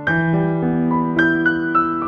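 Background piano music: a gentle melody over sustained chords, with a new note or chord struck about every half second.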